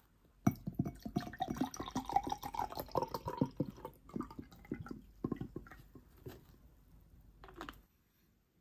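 Grapefruit-flavoured sparkling water poured from a bottle into a tall cup, the pitch of the pour rising as the cup fills. It tails off into scattered splashes and drips and stops suddenly near the end.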